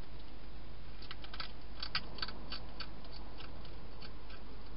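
Wild hedgehog crunching dry food inside a plastic feeding box: an irregular run of sharp, crisp crunches, thickest between about one and three seconds in, over a steady low hum.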